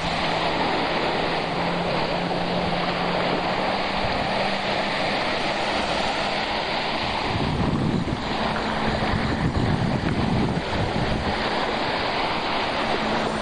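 Small sea waves washing in at the shoreline, with wind buffeting the microphone.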